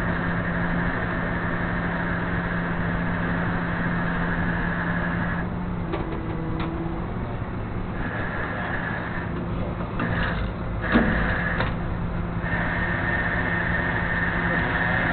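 Flatbed tow truck's engine running steadily, with a constant high whine over the hum and a few light knocks and clanks about two-thirds of the way through.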